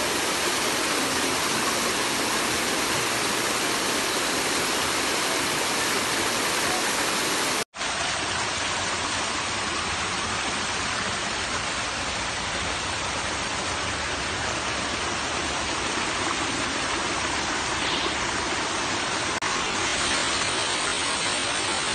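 Water rushing and splashing steadily down a rocky waterfall cascade. The sound drops out for an instant about eight seconds in, then carries on as before.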